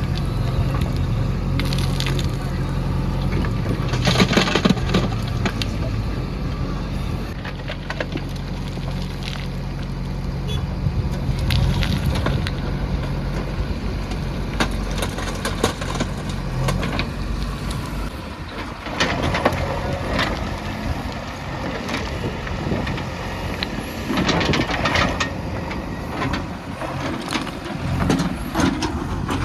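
Diesel engine of a JCB backhoe loader running while its bucket digs and dumps mud, with crunching and clattering of soil and stones. The engine drone drops away about two-thirds of the way through, and the crunching grows louder in two bouts near the end.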